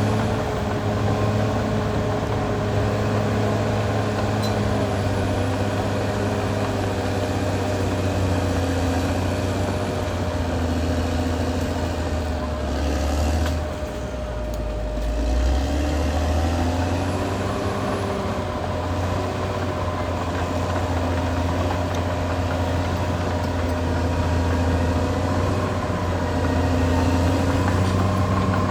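Caterpillar D6R XL bulldozer's diesel engine running steadily, its note dropping lower for a couple of seconds about halfway through, then picking back up.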